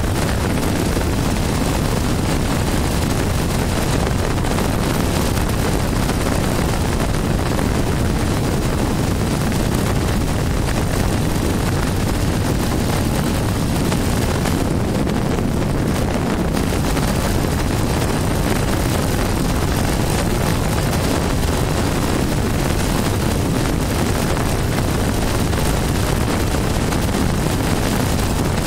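A 1973 Triumph Tiger's parallel-twin engine runs steadily at cruising speed, mixed with the rush of wind over the microphone. The level holds even, with no gear changes or revving.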